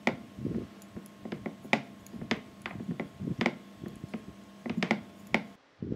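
Wooden rolling pin rolling pide dough back and forth on a wooden board, with a soft click or knock about every half second.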